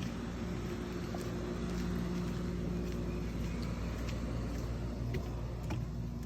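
A steady motor hum, with a few held low tones over a continuous rumble.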